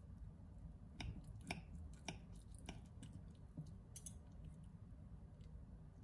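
Faint clinks and scrapes of a metal knife and fork against a ceramic plate while cutting soft baked food. There are a few sharp clicks between about one and four seconds in, over a low room hum.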